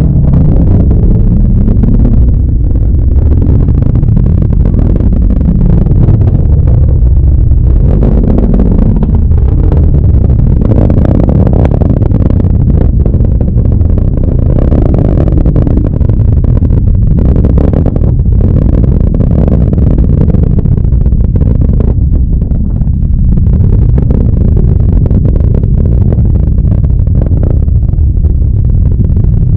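Continuous low rumble of the GSLV Mk III rocket climbing away after liftoff, heard from across the water, with a ragged crackle over the steady roar and no break.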